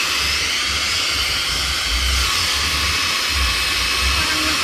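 One Step hot-air brush hair dryer and styler running steadily, its fan blowing air out through the brush with an even, steady hiss and a low motor rumble underneath.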